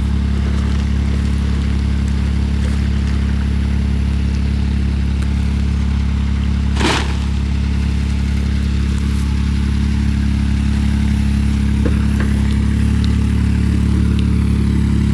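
Vehicle engine running steadily under load while pulling a tiny house into place, a little louder over the last few seconds. A brief rush of noise about seven seconds in.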